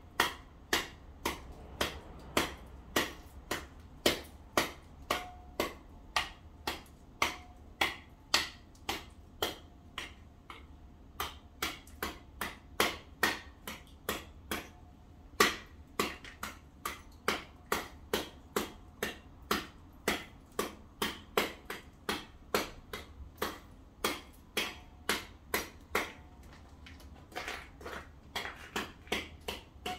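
Short, sharp scraping strokes in packed snow, about two a second with a few brief pauses, as snow is gathered up by someone crouching over it.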